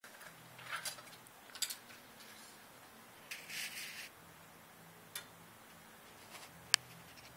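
Scattered light clicks and rustles of a recurve bow and arrow being handled, with one sharp, loud click near the end.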